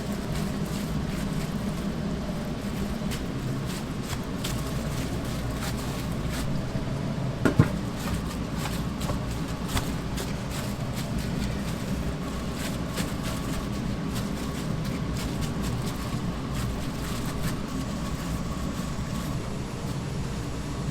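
Kitchen work noise: a steady low hum with scattered light clicks and clatter, and one sharp knock about seven and a half seconds in.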